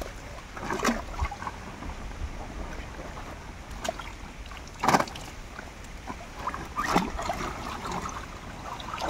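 Pond water splashing and sloshing as fish are handled and pushed into sacks in shallow water. A few sharper splashes come about a second in, at about five seconds and near seven seconds.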